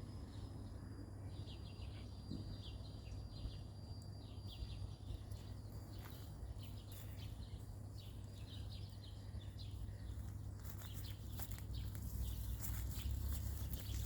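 Footsteps rustling through grass and leaves over a steady low outdoor rumble, the rustles coming thicker in the last few seconds.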